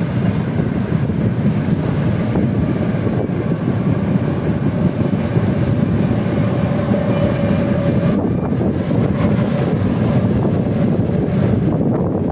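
Freight train of tank wagons rolling past, a steady rumble of wheels on the rails.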